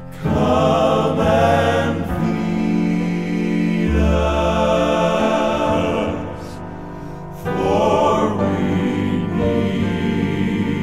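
Southern gospel male quartet recording: men's voices singing in close harmony with accompaniment, in phrases that swell about a quarter second in and again about seven and a half seconds in.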